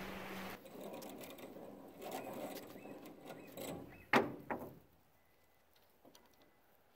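Rustling handling noises at a cut log, with two sharp knocks a little after four seconds in. A steady hum stops abruptly about half a second in.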